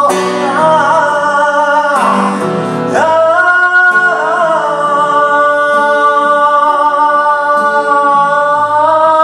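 A man singing over his own acoustic guitar, live in a hall; after a few short phrases he holds one long sung note for several seconds from about three seconds in.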